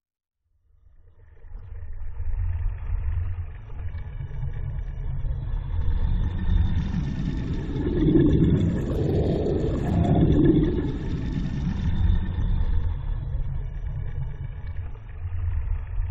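Designed sound effect of deep bubbling swooshes: a dense low bubbling rumble that starts about a second in, with swooshes that swell and fade, the two loudest around the middle.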